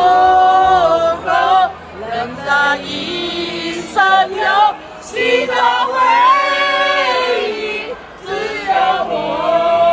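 A mixed group of men and women singing a Chinese song together, loudly, with long held notes and short pauses between lines.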